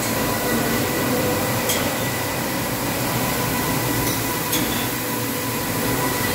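Automatic carpet washing machine running, its rotating brush heads scrubbing a carpet fed along the conveyor: a steady mechanical drone with a constant whine and a couple of brief sharp clicks.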